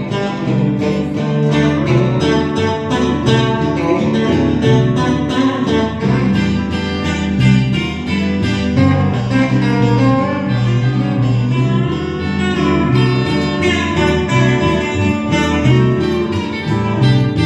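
Country band playing an instrumental break, a guitar taking the lead over a steady beat.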